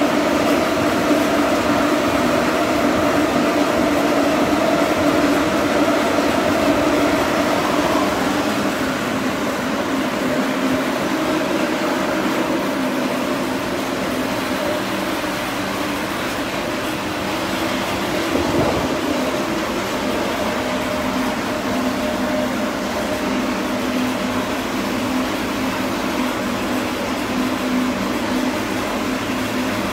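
Electric blower fan running steadily with a loud, even hum of several steady tones, which shift slightly in pitch about eight seconds in.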